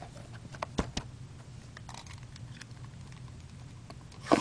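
Plastic shrink-wrap being torn off a factory-sealed cardboard box of trading cards, with scattered small crinkles and clicks and a louder knock near the end.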